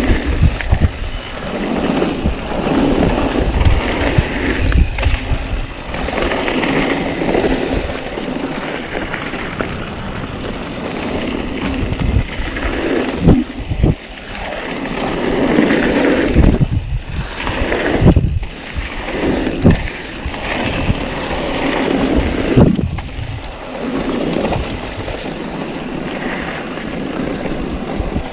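Mountain bike rolling fast downhill on a loose gravel trail: tyres crunching over gravel and the bike rattling over bumps, with wind rushing over the camera microphone. Several sharp knocks come from hard hits along the way.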